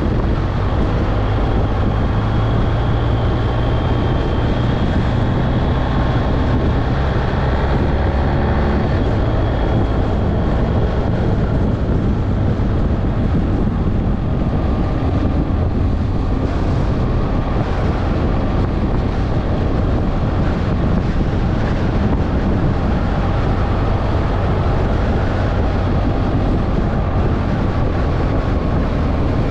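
Motorcycle engine running at a steady cruising speed, heard from on board with wind and tyre noise.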